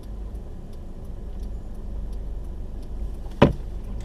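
Steady low rumble inside a stopped car's cabin in a blizzard, with the faint regular ticking of the hazard-light flasher. A single sharp knock sounds about three and a half seconds in.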